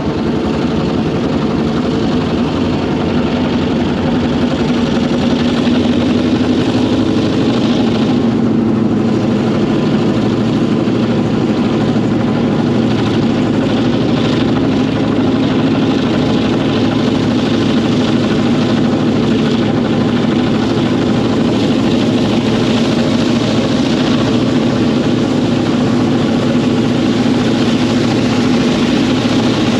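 The EMD V16 567B two-stroke, Roots-blown diesel engine of GM-class locomotive GM27 running under power with a loud, steady, even drone as the locomotive moves along the line.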